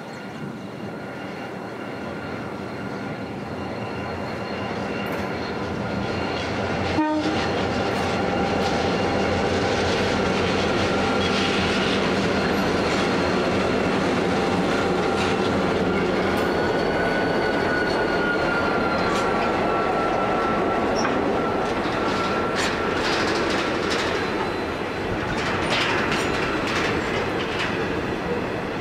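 Pacific National 81 class and BL class diesel-electric locomotives approaching and passing at the head of a grain train, growing louder over the first eight seconds. The steel-wheeled grain hopper wagons follow, rolling by with clicks over the rail joints. A thin steady whine runs through much of it, and a single sharp knock sounds about seven seconds in.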